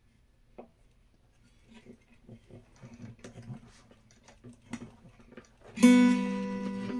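Light scrapes, taps and clicks of a guitar pickguard being worked into its mortise on an acoustic guitar. About six seconds in, the open strings ring out loudly and hold as they fade.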